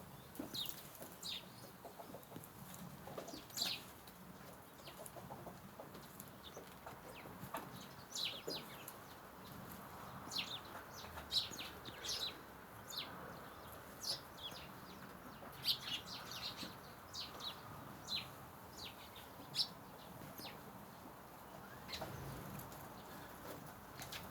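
Birds calling: many short, high chirps scattered irregularly, a few of them louder, over a faint steady background hiss.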